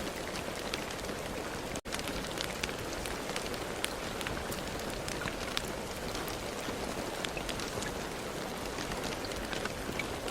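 Steady rain, with many single drops ticking sharply over the even hiss. The sound cuts out for an instant just under two seconds in, then carries on unchanged.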